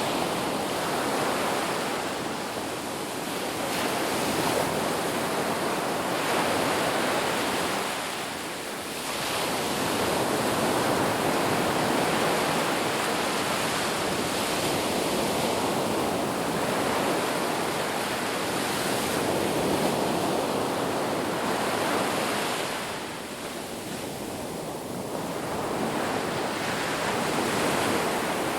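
Sea waves washing onto a shore in a continuous rushing surf, swelling and easing every few seconds, with a lull about eight seconds in and another near 23 seconds.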